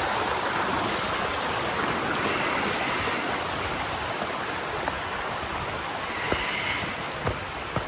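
Rushing water of a rainforest creek: a steady, even wash of noise, easing slightly in level, with a few faint knocks in the last few seconds.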